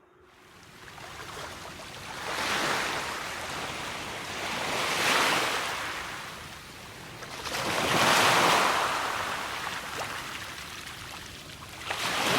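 Ocean surf: waves washing in and drawing back as broad swells of rushing noise, about one every three seconds.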